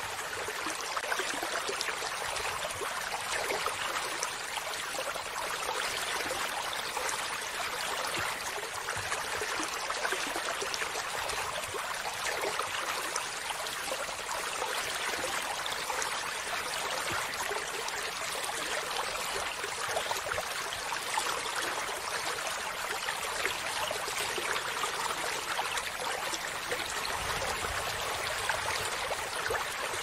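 Shallow stream running over rocks and stones: a steady, even trickle of water, mostly light and high with little low rumble.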